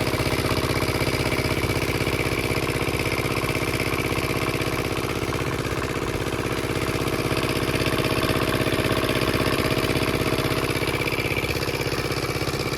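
A small engine running steadily at an even speed, with a fast regular pulse and no change in pitch.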